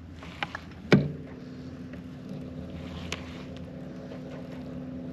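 Electric trolling motor humming steadily, its pitch stepping up after a sharp knock about a second in, with a few light clicks around it.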